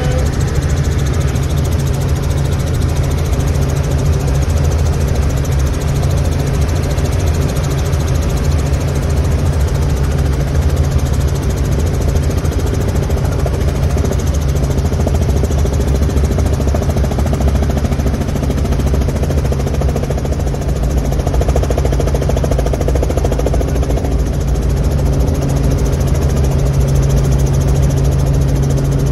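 Small helicopter in flight, heard from inside the cabin: a loud, steady drone of engine and rotor with a constant low hum.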